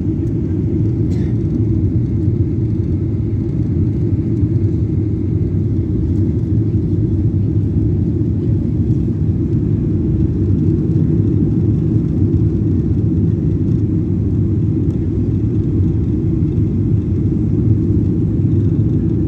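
Steady low cabin rumble of a Boeing 737 jet airliner's engines and airflow on approach, with the wing flaps extended.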